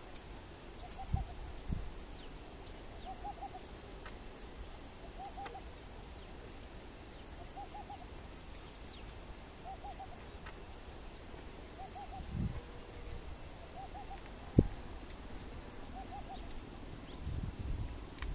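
A bird's soft hooting call, a short burst of three or four quick notes repeated about once a second, over a steady high-pitched whine. A few low thumps, the loudest a single sharp knock late on.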